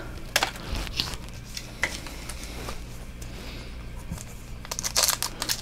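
Soft rustles and clicks of trading cards being handled, then near the end a rapid crackling of a foil booster pack wrapper being crinkled.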